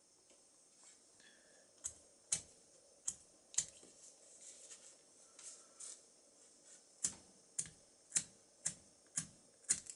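Sharp metallic clicks as a small bullet-shaped brass lighter is handled. In the second half its flint wheel is struck about twice a second, six times, to light it.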